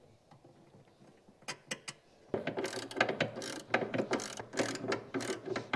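Socket ratchet clicking rapidly as a nut is run down a threaded stud, tightening the battery tie-down clamp onto the battery. The clicking starts about two seconds in, after a few light clicks.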